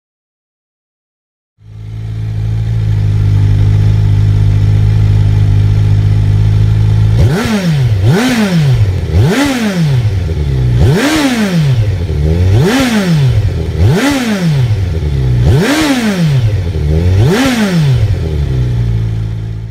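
Kawasaki Versys 1000 inline-four engine running through an SP Engineering aftermarket silencer. The sound comes in about a second and a half in, idles steadily, then is blipped through about seven quick throttle revs, each rising and falling in pitch, before settling back to idle.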